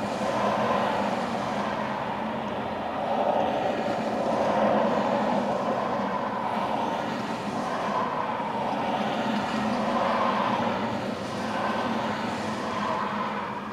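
Highway traffic: cars passing one after another, the tyre and engine noise swelling and fading every few seconds.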